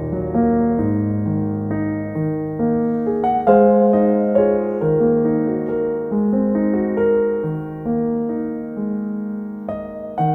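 Soft background piano music: a slow melody over sustained chords.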